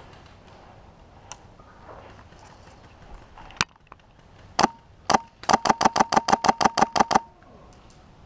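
Airsoft gun firing: a few single shots a second or so apart, then a rapid burst of about fourteen shots over nearly two seconds, about eight a second.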